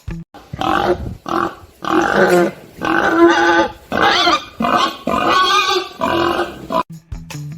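Pig calling in a run of about eight short calls, each under a second long.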